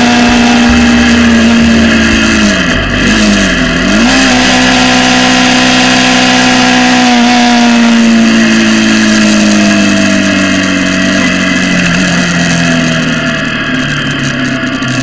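Motorcycle engine heard from the rider's own bike while riding at speed, with wind rush on the microphone. About three seconds in the revs dip briefly and come back up. From about eight seconds in the revs fall steadily as the bike slows down.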